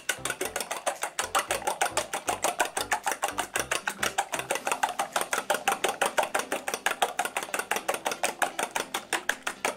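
Raw eggs being beaten by hand in a stainless steel bowl: a utensil clicks against the metal in a fast, even rhythm of about seven or eight strokes a second.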